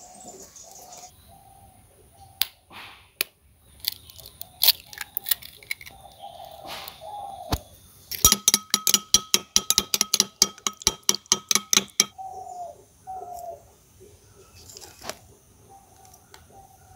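A spoon beating an egg in a ceramic bowl: a fast run of clicks, about six a second, for some four seconds midway, with the bowl ringing. Doves coo now and then in the background.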